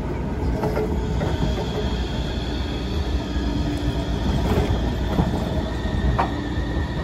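Portram TLR0600 low-floor tram rolling slowly through a curve. Its wheels squeal in a high steady tone over a low running rumble, with a few clanks as the wheels cross the track joints.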